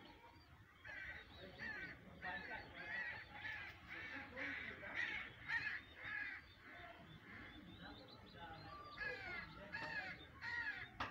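A run of short bird calls, about two a second, each rising and falling in pitch. They break off for a couple of seconds about two-thirds of the way through, then resume.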